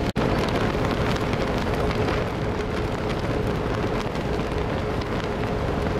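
Steady wind rushing over the microphone on the open deck of a moving cruise ship, with a faint steady hum underneath. The sound breaks off for an instant right at the start.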